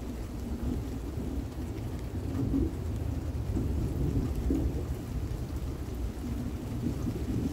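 Thunder rumbling low and long, growing louder about two seconds in and rolling on, with rain falling.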